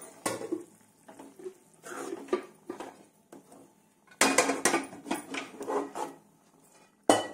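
Steel spoon scraping and clinking against a metal kadai while stirring a thick masala curry. The strokes come irregularly, with a dense run of scrapes about four seconds in and a sharp clank near the end.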